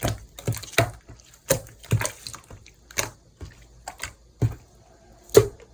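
Homemade watery slime being squished and pressed by hand, giving wet clicking and popping squelches about twice a second that thin out, with one louder pop near the end.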